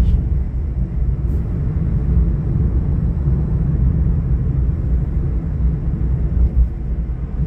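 A car driving along: steady low road and engine rumble with no change in pace.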